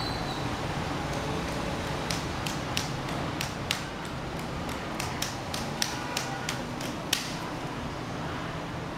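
Laptop keyboard keys clicking as a small child's hands press them at random: about fifteen sharp, irregular clicks between about two and seven seconds in, the loudest near the end, over a steady hiss.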